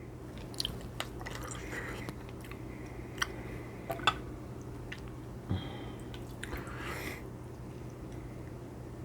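Close-miked chewing of shrimp cocktail: wet mouth smacks and sharp clicks at irregular moments, the loudest about four seconds in, over a steady low hum.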